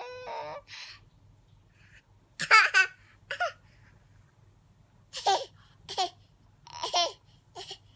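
A baby giggling and squealing in short, high-pitched bursts, about seven of them, with short pauses in between.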